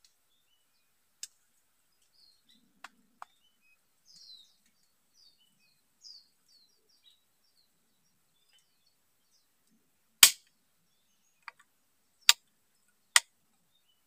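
Small birds chirping faintly, then about ten seconds in a loud, sharp gunshot from a long gun fired upward at birds in the bamboo, followed by two more sharp cracks about a second apart near the end.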